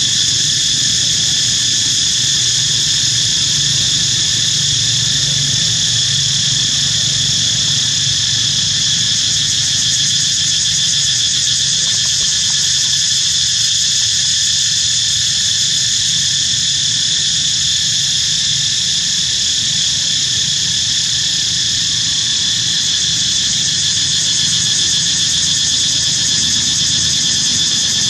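Loud, steady chorus of insects shrilling without a break, with a faint low hum underneath.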